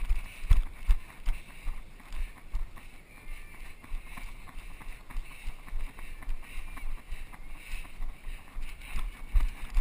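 Footsteps of a runner wearing the camera, heard as a string of low thumps about three a second as the camera jolts with each stride down steel stairs and onto packed dirt. The thumps are heaviest about a second in and near the end.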